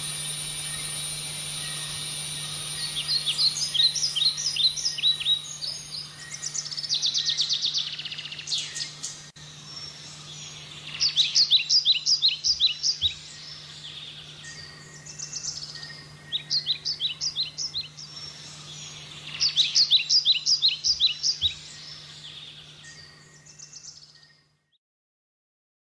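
A wild bird singing in bursts of quick, repeated high notes, about five phrases with a fast trill among them. A steady high-pitched whine sounds in the first few seconds and a low steady hum runs underneath. The sound cuts to near silence shortly before the end.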